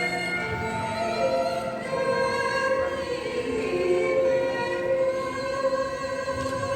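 Music with singing: long held sung notes with a slight vibrato, shifting in pitch a few times.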